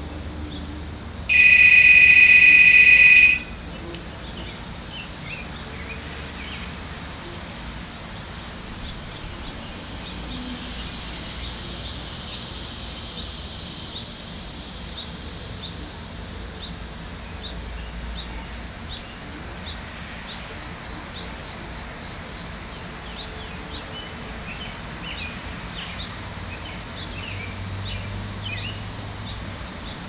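A loud, steady electronic beep lasting about two seconds, about a second in. Behind it is outdoor background with faint bird chirps.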